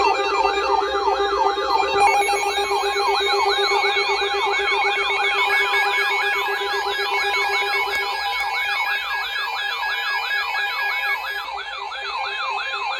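Electronic emergency-alert siren tone: several layered tones, one sweeping up and down quickly about three times a second and a higher one sweeping more slowly, over steady held tones. The lowest held tone drops out partway through and the whole sound eases off near the end.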